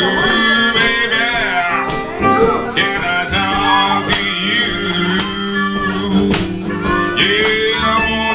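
Live acoustic blues: a harmonica plays bending, sliding lines over an acoustic guitar's accompaniment.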